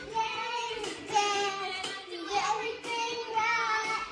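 A young girl singing, with a backing song playing underneath.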